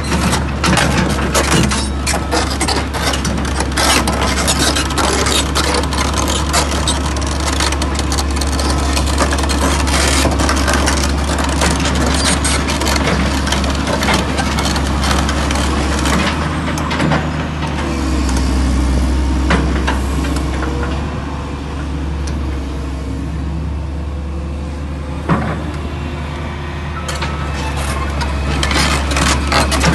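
Caterpillar 330CL track excavator's C9 diesel engine running steadily while the machine travels, with rapid clanking and clicking from its steel track chains. The clatter thins out for several seconds past the middle and picks up again near the end.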